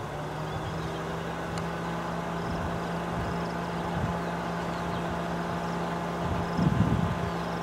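Vehicle engine idling with a steady low hum, with a brief low rumble near the end.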